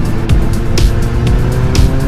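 Kawasaki Z800's inline-four engine pulling steadily in gear, its note slowly rising as the bike gathers speed, with heavy wind rumble on the helmet microphone. A music track with a regular beat plays under it.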